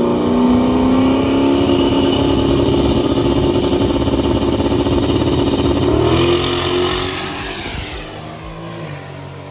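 Drag race car engine at full throttle making a pass down the strip, its note climbing slightly. About six seconds in the pitch drops and the engine sound fades away over the last few seconds.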